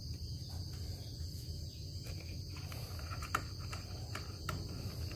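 A screwdriver working the screws of a brush cutter's air filter cover: a few faint clicks and scrapes, over the steady high trill of crickets.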